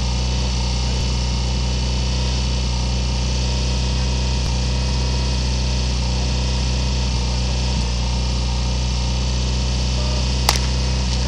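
Portable fire pump's engine idling steadily, with a single sharp crack about ten and a half seconds in.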